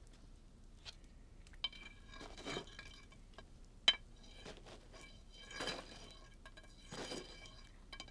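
Tableware being handled on a table: a few light clinks, the sharpest about four seconds in, with faint ringing and soft scrapes between.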